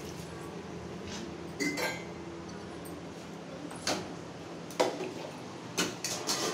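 Steel kitchen utensils clinking and knocking together in a handful of short, separate clinks: the first comes about one and a half seconds in, and several come close together near the end.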